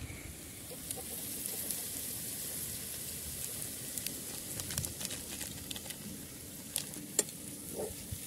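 Potato masala sizzling in a metal kadai over a fire, a steady hiss. From about halfway on, a metal ladle scrapes and clinks against the pan as the masala is stirred.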